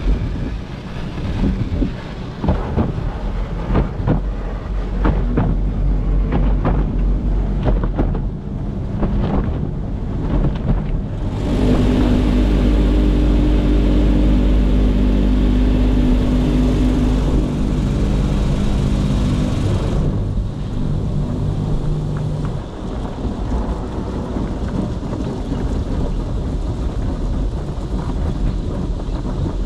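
Cloth mitter curtains and wrap brushes of a Peco soft-cloth car wash tunnel slapping and rubbing over a car, with spraying water, heard from inside the car. About eleven seconds in it gets louder and steadier with a droning machine hum for about eight seconds, then eases to a softer hiss with occasional slaps.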